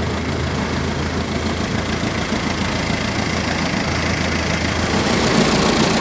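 Fishing boat's engine running steadily while trolling, a low hum under a steady hiss that grows a little louder near the end.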